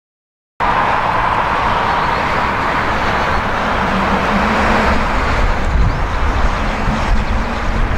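Jet noise from a Boeing 777-300ER's two GE90-115B turbofans as the airliner flares and lands, cutting in abruptly about half a second in. The noise is loud and steady, with a whine in the first couple of seconds.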